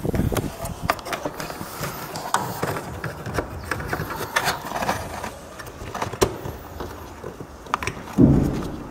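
Rustling and scattered sharp clicks of hands working a plastic bulb holder into the back of a car headlight, with a dull thump near the end. Handling noise rubs on the microphone throughout.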